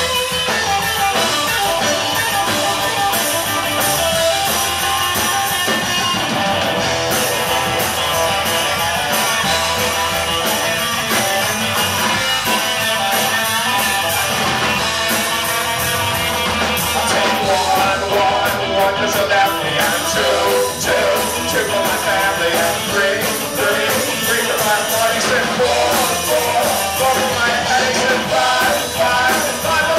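Live rock band playing loud with electric guitars, drum kit and fiddle, the sound filling a small club. Wavering melodic lines come in about halfway through, with singing near the end.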